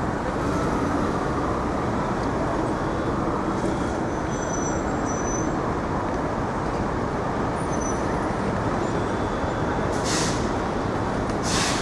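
Steady traffic noise of a city street. A few faint high squeals come in the middle, and two short, sharp air-brake hisses from a bus or truck come near the end.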